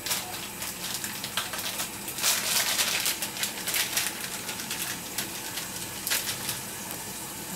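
Plastic wrapping on cheese slices crinkling and crackling as they are unwrapped, in a dense crackly spell about two seconds in and a shorter one near six seconds. A steady sizzle of burger patties frying in the pan runs underneath.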